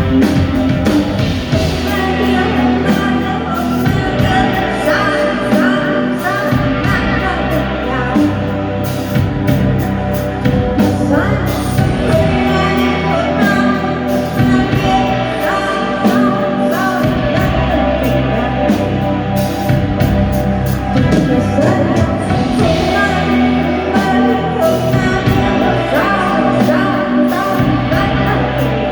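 A live band playing a song, with a singer's voice over sustained bass notes that change every few seconds.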